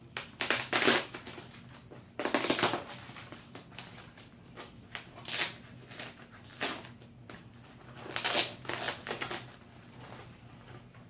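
Packing material rustling and scraping in a series of short bursts as it is handled and pulled away from a boxed radio.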